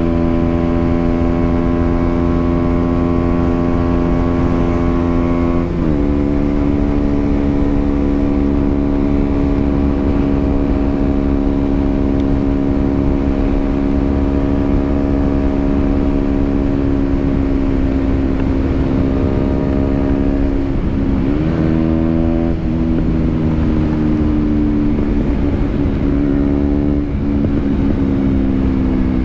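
KTM Duke 125's single-cylinder four-stroke engine running under way with wind rumble on the microphone. The engine note drops sharply about six seconds in as a gear is changed up, then holds steady. In the second half it dips and rises again and sinks slowly near the end.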